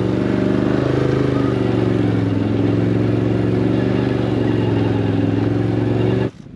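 An engine running steadily at an even speed, cutting off suddenly near the end.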